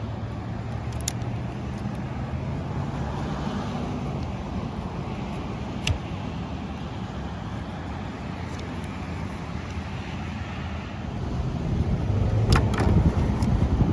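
Steady low rumble of road traffic, growing louder near the end, with a few brief sharp clicks: one about six seconds in and several close together near the end.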